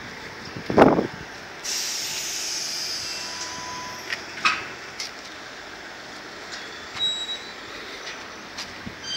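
A passenger train running on the line through the station: a steady high hiss of wheels on rails sets in about two seconds in and slowly fades. A single sharp thump comes just before it, about a second in, the loudest sound.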